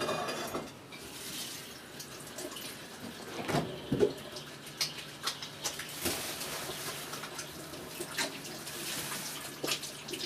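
Kitchen tap running into a sink, with knocks and clatters of kitchenware now and then; the loudest are two knocks about three and a half and four seconds in.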